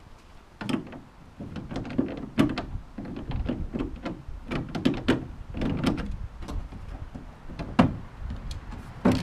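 Irregular clicks and dull knocks as the hook bolts holding a PVC outrigger crossbar to a canoe's gunwale are worked loose and the pipe frame shifts against the hull, with a loudest knock near the end.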